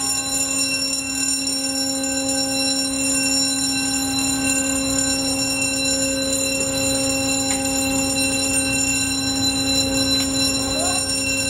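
Steady machinery hum from a warship, a constant pitched drone over a low rumble that holds unchanged throughout.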